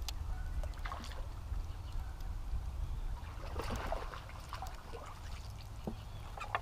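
Steady low rumble of wind buffeting the microphone, with scattered light clicks and rustles over it.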